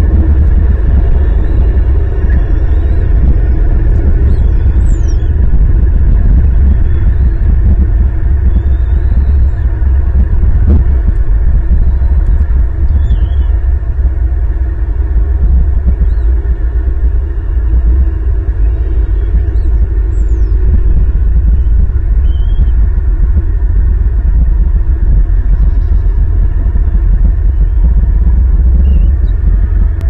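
Loud, steady low rumble of wind buffeting the nest-camera microphone, with faint, short high chirps of birds scattered through it.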